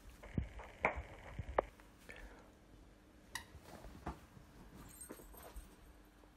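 Faint knocks and rustling from a cavapoo puppy's tug of war over a plush toy, with the handheld camera being jostled. A cluster of sharp knocks falls in the first two seconds, and two more come about three and four seconds in.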